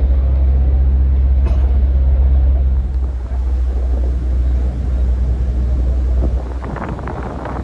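RiverCat catamaran ferry's diesel engines running with a steady low drone, heard from the open deck as the ferry moves off. The drone eases a little about three seconds in, and wind on the microphone and water noise become more noticeable near the end.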